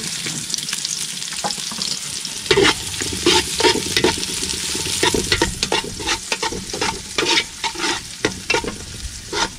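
Garlic, ginger and onion sizzling as they sauté in a metal pot, while a metal ladle stirs them and scrapes and clinks against the pot. The ladle strokes come thick and fast from about two and a half seconds in.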